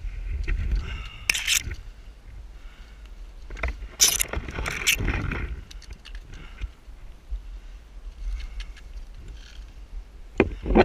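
Scrambling up a granite slab: scrapes and sharp knocks of a trekking pole and boots on rock, the loudest cluster about four seconds in and another near the end, over a low rumble on the microphone.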